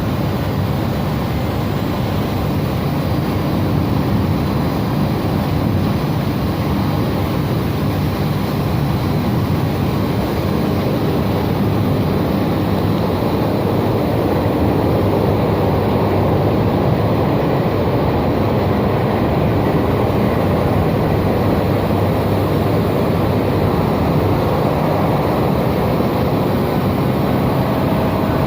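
Electric smelting furnace at its electrodes, giving off a loud, steady rumbling noise with no breaks.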